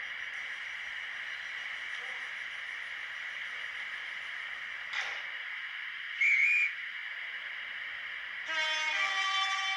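N gauge model train's DCC sound decoder playing railway sounds through its small speaker: a steady hiss, a short high whistle a little after the middle, then a two-note train horn near the end, lower note first.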